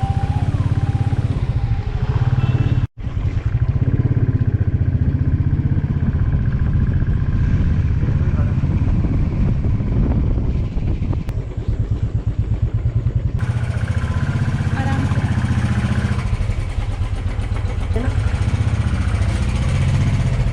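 Motorcycle engine running steadily under way, with a low, even pulsing beat. The sound breaks off for an instant about three seconds in, then carries on.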